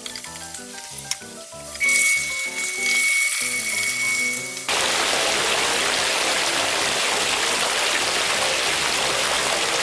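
Water pouring from a pipe into a fish tank as it refills: a splashing rush with a thin steady whistle starts about two seconds in, and about halfway through it becomes a loud, steady rushing. Background music with a plucked melody plays underneath.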